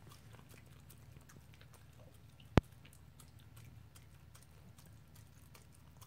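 A dog chewing sticky rice: faint scattered wet mouth clicks over a low steady hum, with one sharp, loud click about two and a half seconds in.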